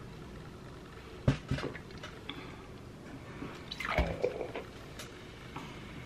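Diet Coke being drunk straight from a plastic soda bottle: the liquid glugs and gurgles in the bottle, with a few sharp clicks of the plastic, the loudest about a second in, and a longer gurgle about four seconds in.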